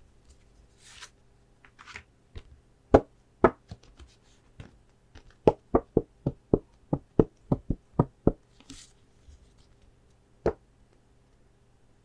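Gloved fingers tapping crisply on packaging, a quick run of about a dozen taps at roughly four a second in the middle, with a few single taps before and after and a couple of brief rustles.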